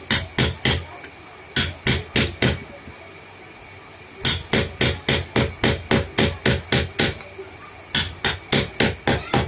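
Hammer blows struck in quick runs, about three a second, with short pauses between the runs.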